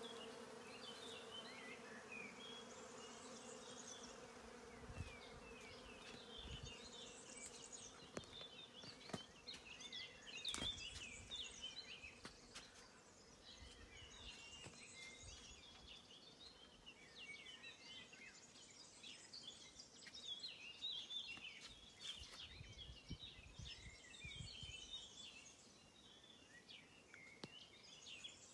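A flying insect buzzes in a steady low hum for the first few seconds before fading away, while small birds chirp in short, quick high notes throughout. A few soft low bumps come and go.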